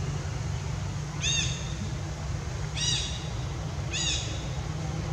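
Three short, high-pitched calls from an unseen animal, each rising and falling, about a second and a half apart, over a steady low rumble.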